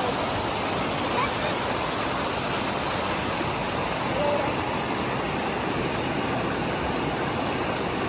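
River water rushing steadily, a dense even wash of fast-flowing water.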